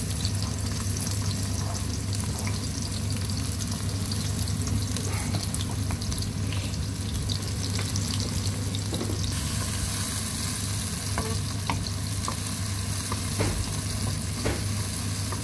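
Chopped onions sizzling in hot oil in an aluminium karahi, a steady hiss with small scattered crackles. Near the end a spoon stirs them through the oil.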